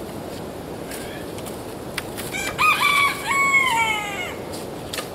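A rooster crowing once, about two and a half seconds in: a held note that breaks into falling steps. Under it runs steady wind noise, with a few sharp knocks of firewood being handled.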